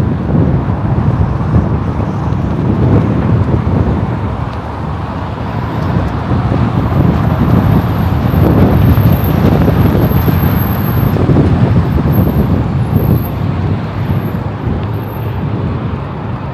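Road traffic going by: a low, rumbling noise that swells and fades, loudest around the middle.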